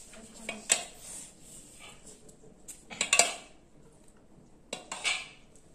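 A metal serving spoon clinking against stainless-steel plates and a pot as food is ladled out: a few scattered clinks, the loudest a quick cluster about three seconds in.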